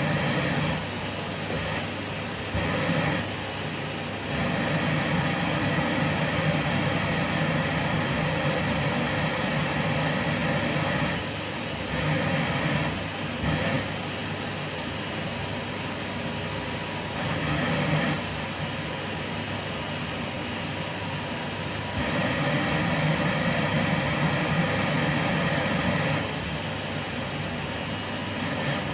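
Vacuum cleaner running steadily: a constant rushing hum with a thin high whine that drops out and returns, the loudness stepping up and down every few seconds.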